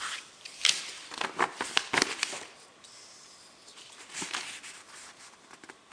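Handling noise from a paper instruction leaflet and the items around it: a quick run of rustles and light clicks for the first two and a half seconds, then a softer rustle about four seconds in.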